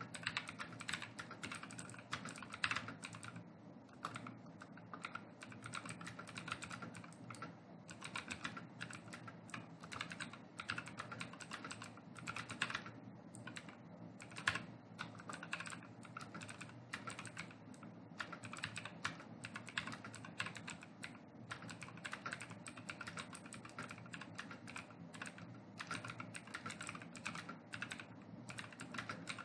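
Fast, continuous typing on a computer keyboard: a rapid, faint run of key clicks with a few brief pauses.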